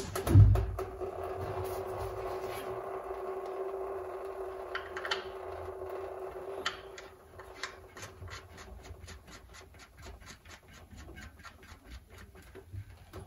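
A thump, then a ratchet clicking rapidly and evenly, about five clicks a second, as the rear axle's oil fill plug is done up after filling with gear oil. Before the clicking there is a faint steady hum with one held tone.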